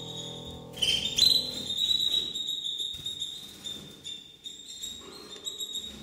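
High-pitched canary peeping and chirping, a thin steady call with quick chirps on top that swells suddenly about a second in, while solo jazz piano fades out at the start.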